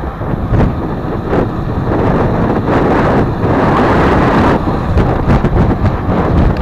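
Wind buffeting the microphone of a camera on a moving road bicycle, a steady loud rush with a few sharp knocks.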